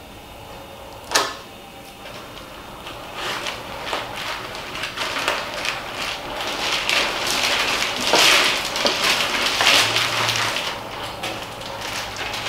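Clear plastic wrapping crinkling and tearing as it is cut with a knife and stripped off a fishing rod. There is one sharp snap about a second in, and the crackling grows busier toward the middle.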